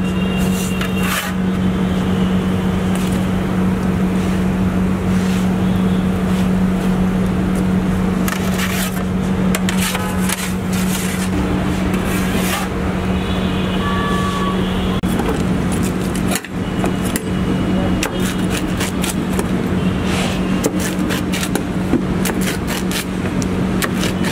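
A steady low hum over a noisy background, with scattered clicks and scrapes throughout.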